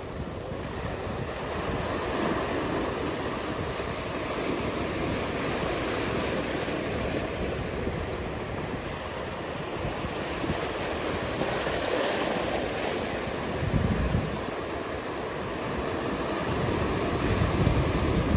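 Ocean surf rushing steadily, with wind buffeting the microphone in low gusts about two-thirds of the way through and again near the end.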